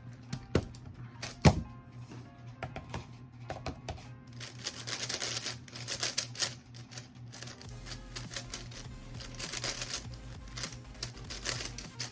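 Sparse sharp clicks, then from about four seconds in a rapid, continuous run of hard plastic clicking and clacking, over a low steady hum.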